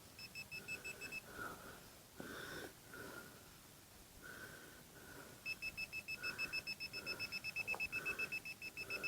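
Metal-detecting pinpointer beeping in quick, even pulses, about six a second: a short run near the start, then a longer run from about halfway as it sits on a small iron target. Soft breathing between the beeps.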